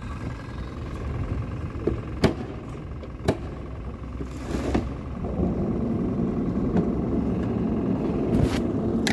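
Sleeve fabric rubbing against the microphone, a scratchy rustle that grows louder from about five seconds in, over a steady low rumble with a couple of sharp knocks.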